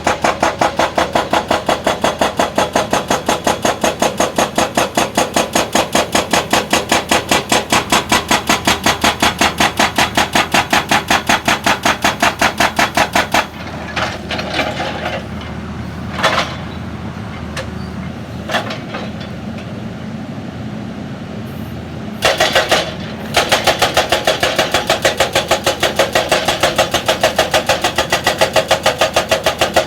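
Excavator-mounted hydraulic rock breaker hammering at several blows a second, with the diesel engine running under it. It stops for about nine seconds, leaving the engine and a few single knocks, then resumes.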